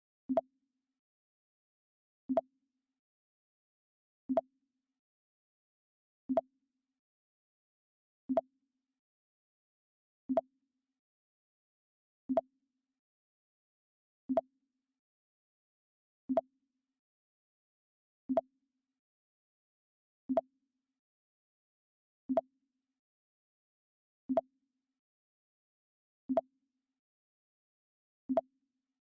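The Mac OS X 'Pong' alert sound, a short low blip repeated about every two seconds.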